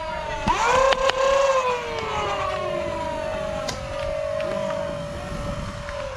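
Flywheel motors of a foam dart blaster whining, spinning up sharply about half a second in and then holding speed. A few sharp clicks are heard as darts are fired, and the whine fades near the end.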